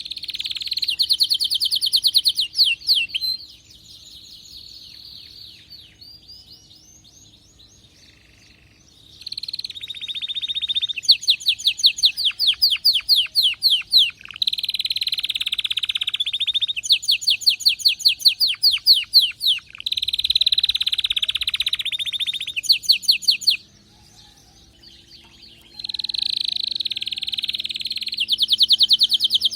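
Domestic canary in full, excited song: long phrases of fast, high trills of repeated notes, with two quieter breaks, about three seconds in and again about three-quarters of the way through.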